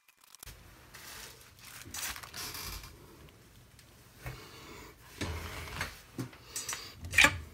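Bubble-wrap packaging being handled: plastic rustling and crinkling with scattered clicks and knocks, louder and busier in the last couple of seconds, with a sharp click near the end.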